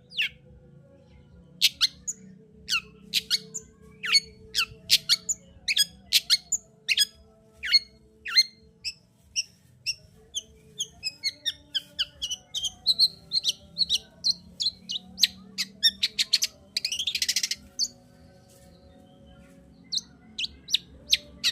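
Long-tailed shrike (cendet) in full song: a fast run of short, sharp chattering notes, with a harsh rasping call about three-quarters of the way through and a pause of about two seconds before the notes resume near the end.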